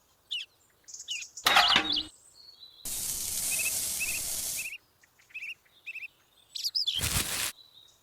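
Small birds chirping in short repeated calls throughout. A steady hiss runs for about two seconds starting about three seconds in, and there are two brief loud noisy bursts, one near the start and one near the end.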